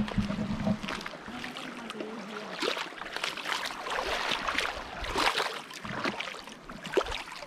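Footsteps wading through shallow seawater on a rocky shore in drain-hole water shoes: irregular splashes and trickling water.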